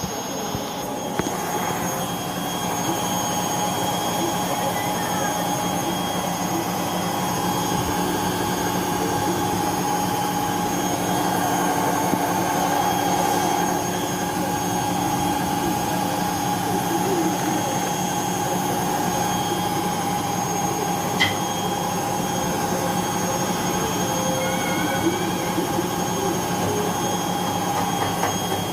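IFB Digital 5.5 kg front-load washing machine running, its drum motor giving a steady hum with a whine on top. The machine is running on a universal replacement control board.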